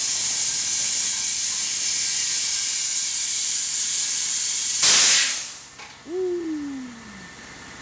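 Compressed air hissing steadily from an air-compressor hose into a truck tire on a steel wheel as it is inflated. Almost five seconds in there is a louder, short burst of air, then the hiss dies away. About a second later comes a brief falling squeal.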